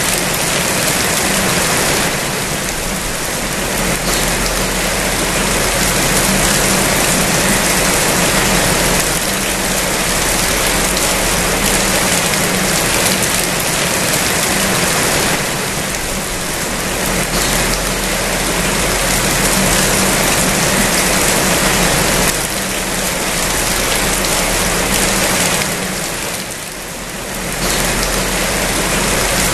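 Steady heavy rain falling, a loud continuous hiss that eases briefly a few times. A low steady hum runs underneath.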